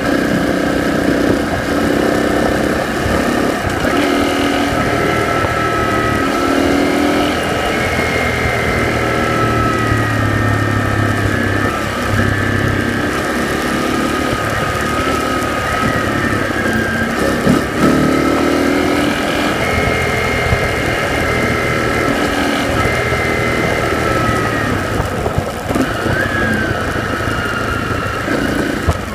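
A vehicle drives steadily along a gravel road, heard from inside: engine running, tyre and road noise, and a whine that rises and falls a little with speed. About two-thirds of the way through there is one louder bump.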